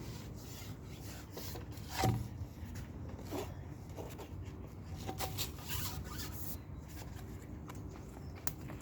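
Scattered rustling and light clicks of something being handled close by, with one louder knock about two seconds in.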